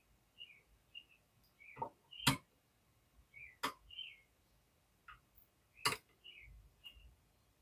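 Hex keys (Allen wrenches) clicking on metal as they are handled and tried in a small set screw: three sharp clicks a second or two apart, with weaker ticks and faint short high chirps between them.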